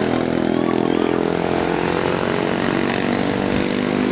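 A vehicle engine droning as it passes, a steady hum that turns into rougher engine and road noise over the second half.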